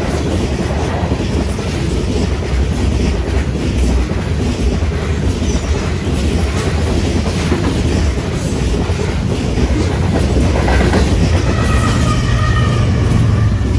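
Freight train covered hopper cars rolling past at speed, wheels clattering over the rail with a steady rumble. In the last few seconds two BNSF diesel locomotives at the rear of the train go by, adding a deeper engine hum and a faint whine.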